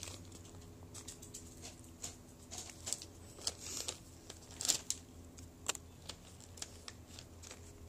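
A bag of turkey jerky being handled and opened: its packaging crinkles in short, irregular crackles throughout.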